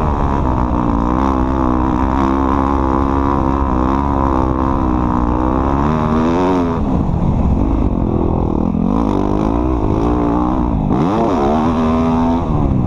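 Off-road vehicle engine running under load, its pitch rising and falling as the throttle opens and closes.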